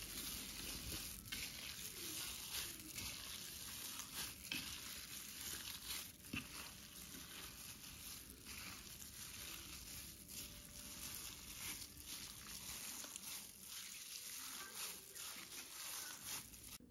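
Faint rustling with scattered small clicks of shredded raw pork being worked together with sausage seasoning.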